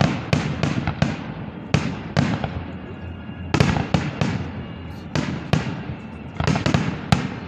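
Festive fireworks display: a rapid, irregular run of shell bursts going off, the bangs crowding together at times, each with a trailing echo.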